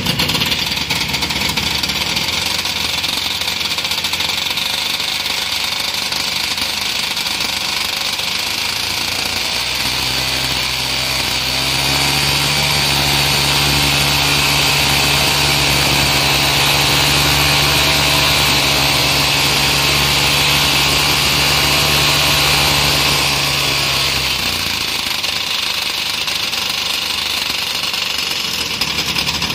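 The two small two-stroke engines of a Cri-Cri MC15 twin-engine mini aircraft run together on the ground, propellers turning. About ten seconds in they settle into a steady, slightly louder, even drone, then drop back to a less even running about twenty-four seconds in.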